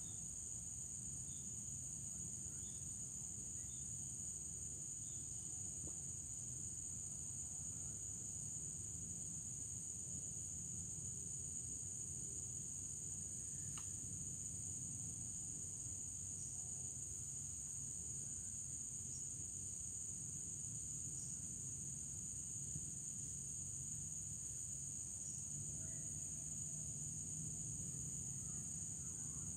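Steady, high-pitched insect chorus of crickets or similar shrilling insects, unbroken throughout, over a low background rumble.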